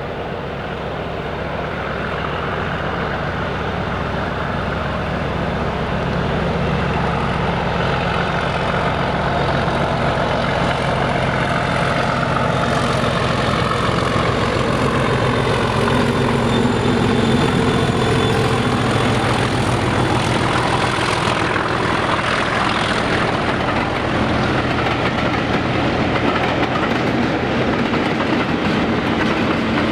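Mainline diesel locomotive working a heritage train under power. Its engine drones steadily and grows louder over the first fifteen seconds or so as it comes closer, then holds, with some wheel-on-rail clatter.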